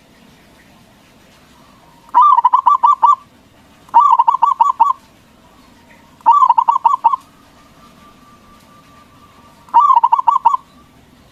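Zebra dove (Javanese perkutut) cooing: four phrases of about six rapid, pulsing notes each, about a second long, with pauses of a second or more between them.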